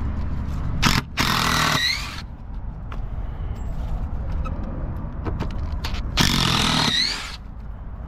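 DeWalt cordless impact driver backing out screws from a wooden board, in two bursts of rapid hammering of about a second each. Each burst ends with a rising whine as the motor speeds up.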